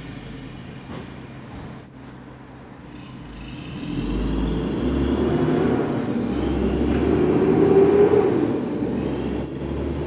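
Rear-loading garbage truck running, its engine rising in level and pitch from about four seconds in, with two short high-pitched squeals, one about two seconds in and one near the end.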